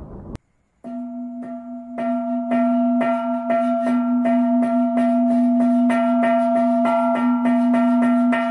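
A thunder-like rumble cuts off suddenly, and after a brief silence a sustained bell-like ringing tone starts, re-struck in a fast even pulse about four times a second, from a title-sequence sound effect.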